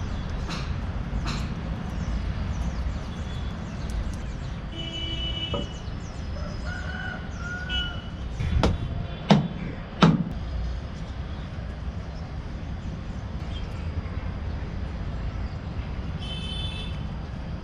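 Steady low background rumble with a few short bird calls, and three sharp knocks a little under a second apart near the middle.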